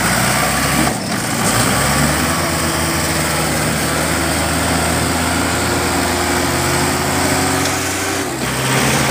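Diesel engines of a JCB 3DX backhoe loader and a Mahindra 585 DI tractor running steadily under load as the loader lifts the front of the tractor. The engine note climbs slightly over several seconds, then drops about eight seconds in.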